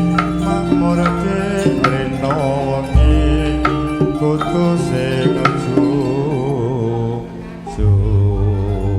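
Javanese gamelan music accompanying tayub dance: struck metallophone notes and hand-drum strokes under a wavering melodic line. Deep gong-like swells come in about three seconds in and again near the end.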